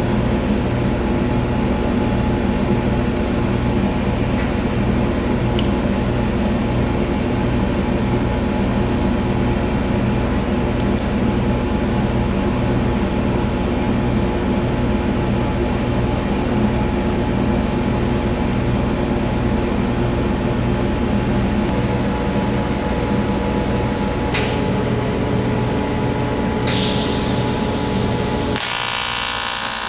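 AC TIG welding arc on aluminium, a steady loud electrical buzz with a pulsing low hum. Near the end the low buzz drops away and a higher, rougher noise takes over.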